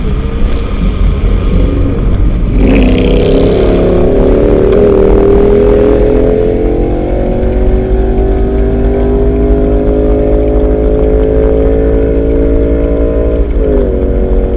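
A vehicle engine comes in loudly about two seconds in and keeps accelerating, its pitch rising slowly for about ten seconds. Near the end the pitch drops suddenly, as at a gear change.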